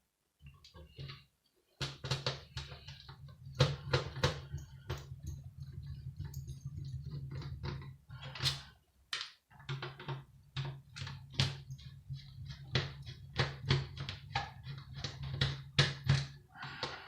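Irregular taps, clicks and knocks of tools and metal parts being handled while a Sky TV box is dismantled, over a steady low hum that drops out briefly twice.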